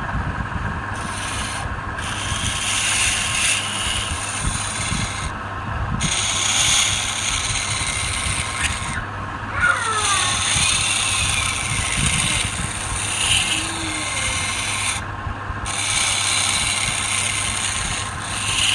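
A wood lathe running with a steady motor hum while something is held against the spinning wood, rubbing and scraping in repeated passes a few seconds long with short breaks between. There is a brief squeal about halfway through.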